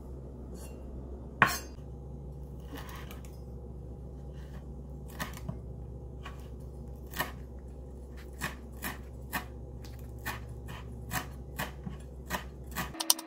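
Chef's knife chopping fresh dill on a wooden cutting board: a single loud knock about a second and a half in, then from about five seconds in a run of sharp, slightly uneven knocks of the blade on the board, roughly two a second, over a steady low hum.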